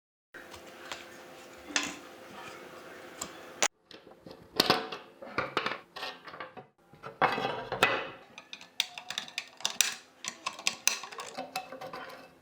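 Small metal parts clinking and clattering as they are handled, in irregular sharp clinks. Over the first few seconds a steady hum with scattered clicks runs under them and cuts off suddenly.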